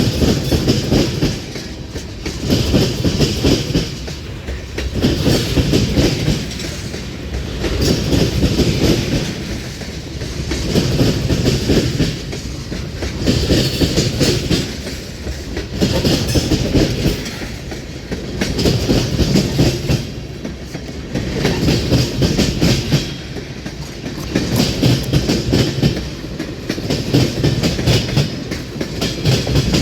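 Freight train cars rolling past, their wheels clacking over rail joints in a regular rhythm, swelling about every two seconds.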